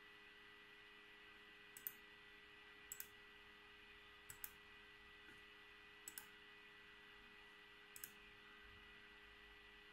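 Five faint double clicks, each the press and release of a computer pointer button, spaced a second or two apart. Under them runs a faint steady hum.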